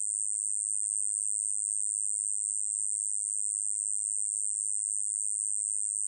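A 꼬마여치베짱이 katydid singing: a continuous, high-pitched buzz that holds steady without a break.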